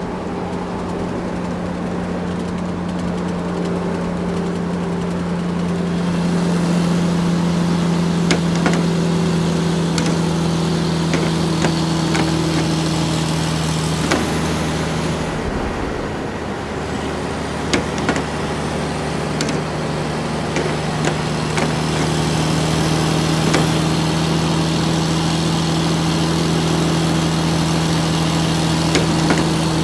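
Remote-control toy excavator's motors running with a steady hum, with scattered clicks throughout. The hum drops out briefly about halfway through, then resumes.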